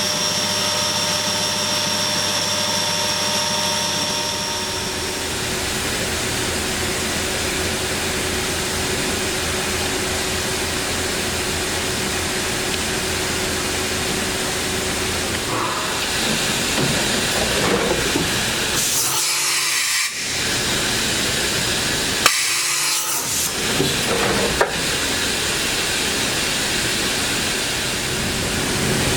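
Bridgeport Torq Cut 22 CNC vertical machining center running: a steady hiss with a high whine that fades out about five seconds in. Two short, louder hissing bursts come about two-thirds of the way through.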